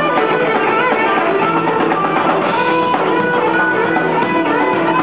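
A live rock band playing, with electric guitar to the fore over drums, loud and continuous.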